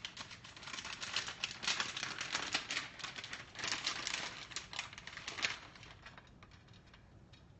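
Eggs sizzling in bacon grease in a skillet, with a dense run of louder crinkling and crackling from a plastic cheese-slice package being opened over the pan; the crinkling eases off after about five and a half seconds.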